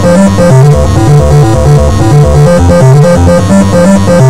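Loud electronic synth music with a steady beat: a bouncing bass line of short notes under short repeating higher notes, the soundtrack of a competition demo.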